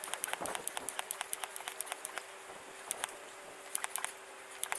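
High-pressure hand pump being stroked in sped-up footage while filling a PCP air rifle: a fast, even run of clicks, about eight a second, that thins to scattered clicks after about a second and a half, over a faint steady tone.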